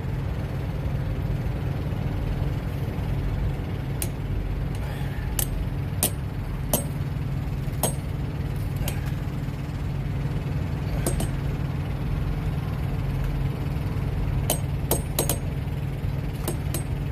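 Irregular sharp metal clinks of steel tire chain links and hardware being handled and tightened on a semi truck's dual tires, over a steady low rumble of idling truck engines.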